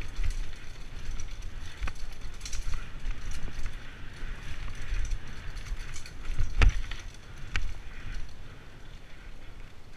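Mountain bike rolling fast over a dirt singletrack: a steady low rumble of tyres and frame with scattered clicks and rattles, and one sharp clunk about six and a half seconds in.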